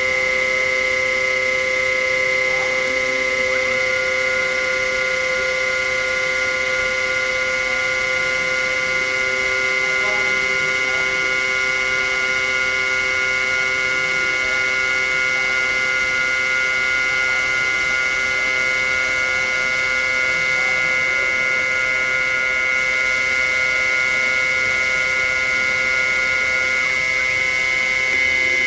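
Harig EZ Surf II CNC surface grinder running under power: a steady, unchanging whine made of several high and mid tones over a hiss.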